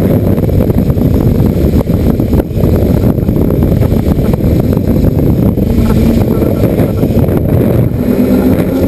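Wind buffeting the microphone of a camera on a flying hexacopter in high wind, a loud continuous rumble, with the hexacopter's electric motors and propellers humming underneath.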